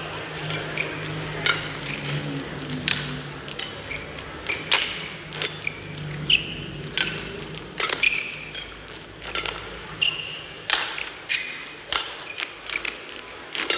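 Badminton rally: sharp cracks of rackets striking the shuttlecock, roughly one every half second to second, with short high squeaks of shoes on the court mat between shots.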